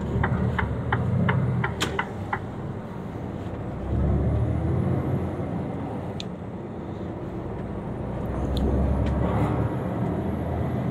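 Mercedes-Benz Actros truck's diesel engine pulling a load of timber, heard from the cab, swelling twice, about four and eight seconds in. A run of quick, even ticks, about three a second, sounds in the first two seconds.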